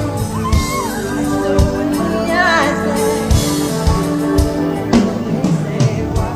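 Live pop concert music: a drum beat under held keyboard chords, with a singing voice that slides downward about two and a half seconds in.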